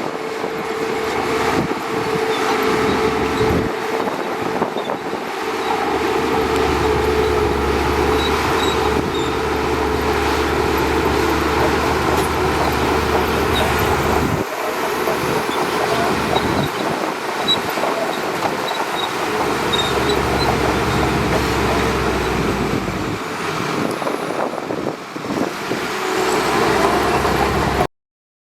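Shantui DH17C2 bulldozer's diesel engine running under varying load, its deep rumble swelling and easing several times over a steady drone. It cuts off abruptly near the end.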